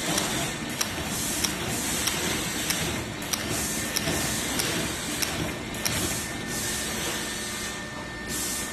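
Automatic face-mask sheet pick-and-count machine running: sharp mechanical clicks about every two-thirds of a second, with hisses of air coming and going over a steady machine noise.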